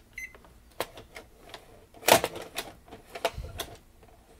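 VHS cassette being pushed into a Panasonic NV-D48 VCR's front-loading cassette housing: a string of plastic clicks and knocks, the loudest about two seconds in, with a brief low rumble near the end.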